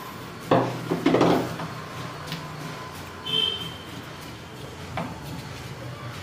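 A plastic spoon stirring and scraping chopped fruit and curd in a plastic bowl, with a louder clatter about half a second in as a plastic container is set down on the wooden table.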